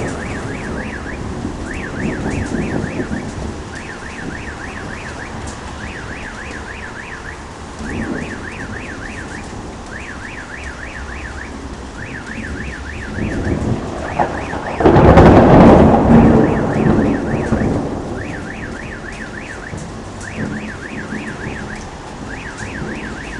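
Thunder rumbling through steady rain, with a loud close thunderclap about fifteen seconds in that rolls on for a few seconds. A car alarm warbles over and over in short repeated bursts.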